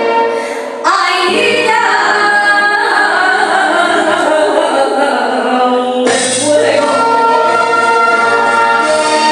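A woman singing a Spanish copla into a microphone over instrumental backing, holding long, sliding notes, with a brief breath pause about a second in.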